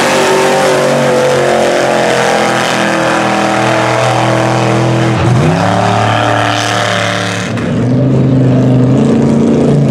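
Mud truck engines running at high revs as the trucks churn through a mud pit. About five seconds in the revs drop briefly and climb again. About two and a half seconds later the sound cuts abruptly to a different engine note.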